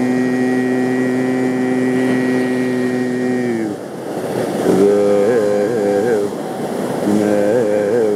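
Male Carnatic vocalist improvising in raga Bhairavi: one long held note for about three and a half seconds, then short phrases with quick oscillating ornaments (gamakas), over a steady tambura drone and the wash of ocean waves.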